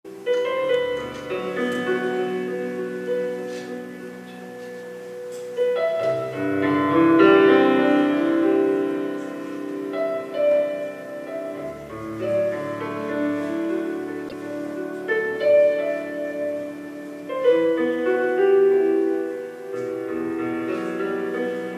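Piano music: slow, held chords that change every few seconds.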